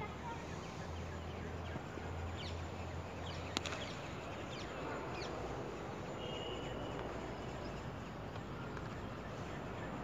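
Steady open-air background noise with a few faint, short high chirps and one sharp click about three and a half seconds in.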